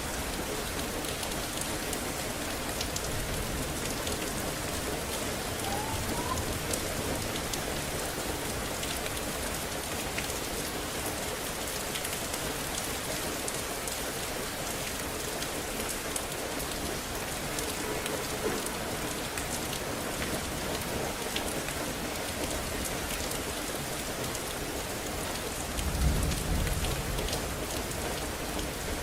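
Steady heavy rain falling and splashing on hard surfaces. Near the end a brief low rumble of thunder swells up and fades.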